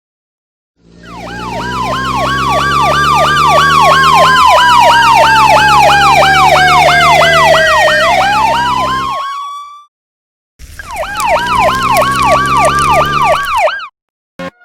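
Emergency vehicle siren: a fast warble, about four cycles a second, over a slower wail that falls and then climbs again, with a steady low drone beneath. It cuts off, then sounds again for a few seconds near the end.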